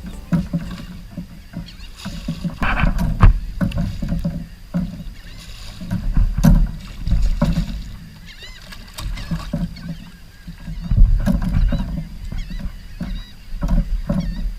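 A hooked redfish fought beside a kayak: irregular splashing and sloshing water, with knocks and thumps on the kayak hull.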